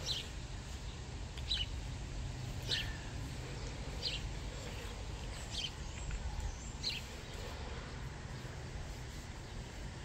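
A bird chirping outdoors: short, high calls repeating every second or so over a low, steady background rumble.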